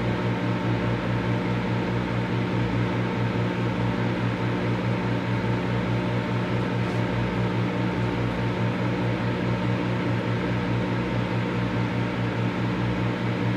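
Microwave oven running: a steady low electrical hum that pulses quickly and evenly, under a fan-like hiss.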